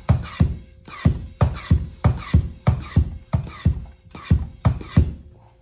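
Background music with a steady beat, about three beats a second, stopping about five seconds in.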